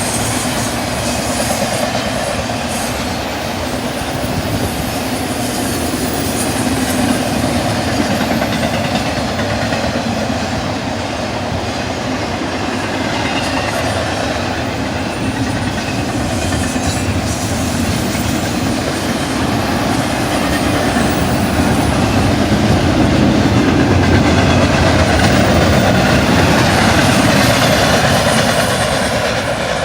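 Intermodal freight train's cars rolling past at speed: a steady rumble of wheels on rail with clickety-clack, growing a little louder in the last third.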